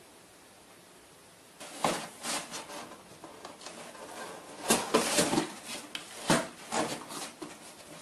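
Cardboard box with cardboard dividers scraping, rustling and knocking as a cat pushes and squirms its way into it. Irregular bumps and rubbing start about a second and a half in, the loudest knocks about five and six and a half seconds in.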